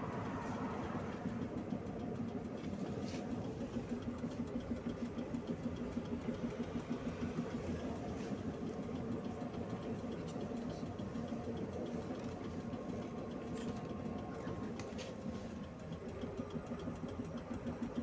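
Engine of a gas-converted PAZ 32054 bus, a ZMZ petrol V8, idling and running, heard from inside the passenger cabin as a steady low throb, with a few faint clicks from the bus.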